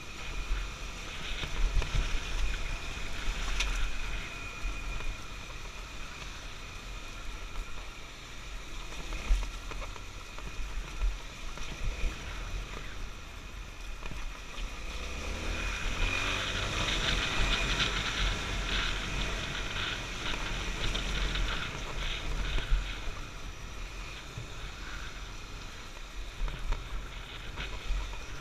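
Honda XR250 Tornado's single-cylinder four-stroke engine running as the dirt bike rides over a rough, rocky track, with wind buffeting the microphone. The engine revs up about halfway through.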